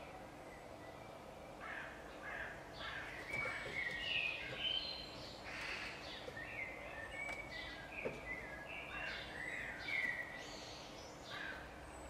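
Eurasian magpies calling: a run of short, repeated calls that starts about two seconds in, comes and goes, and fades near the end.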